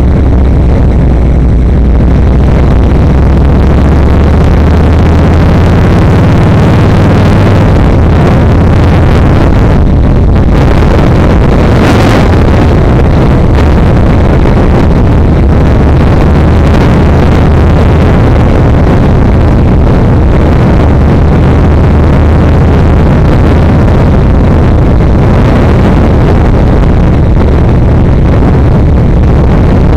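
Yamaha XVS1300's V-twin engine running steadily on the move. Its note drops about eight seconds in. A brief sharp noise comes about twelve seconds in.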